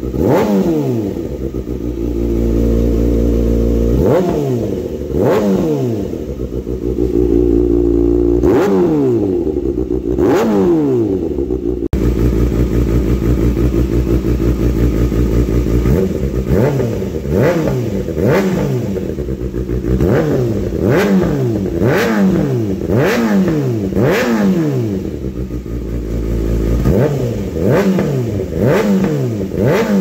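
Kawasaki ZX-6R 636 inline-four engine idling and revved in repeated sharp throttle blips through a slip-on muffler on M4 Tech 1 headers. It is an Akrapovic slip-on at first; after a cut partway through it is a Yoshimura Alpha T, blipped in quicker succession, about once a second.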